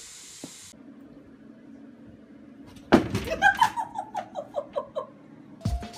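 A sharp knock about three seconds in, then a person laughing hard in a quick run of short 'ha's that fall in pitch.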